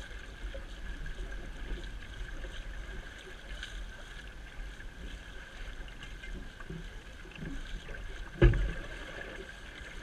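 Water rushing and churning in a sailboat's wake, with wind rumbling on the microphone. A single sharp thump comes near the end.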